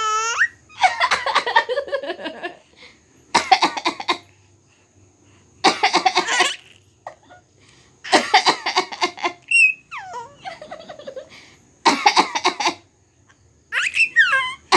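An adult coughing over and over, in short raspy bursts about every two seconds, while a baby laughs and squeals in reply.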